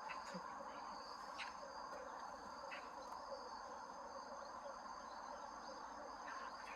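Crickets chirring in a steady high-pitched chorus, faint and continuous, over a low background hiss.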